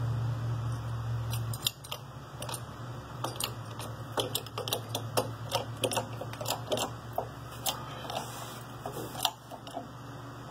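Irregular light metallic clicks and ticks as a hand works a 20-ton stubby hydraulic bottle jack seated in a steel-plate press. A low steady hum cuts off about a second and a half in.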